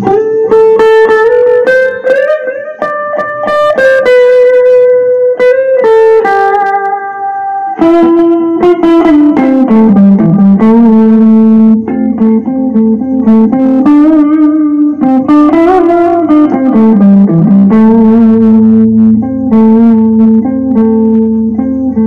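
Electric guitar playing a slow lead melody of held notes, bending the pitch down and back up and adding vibrato in the second half.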